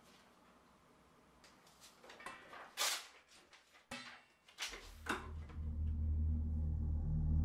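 Kitchen cupboard and counter handling: a few short knocks and scrapes, the loudest about three seconds in. About halfway through, a low droning music swell comes in under them and builds.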